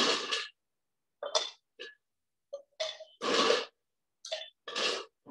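Ice cubes dropped and scooped into clay cantarito cups: a series of short clatters with silent gaps between them.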